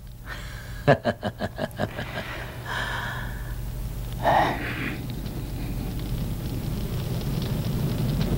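Drama soundtrack under a silent close-up: a quick run of struck notes about a second in and a few held tones, then a steady noise that swells slowly toward the end.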